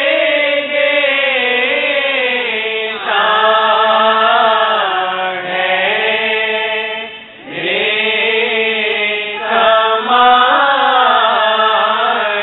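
Devotional vocal chanting in long, held, wavering phrases that pause briefly a few times.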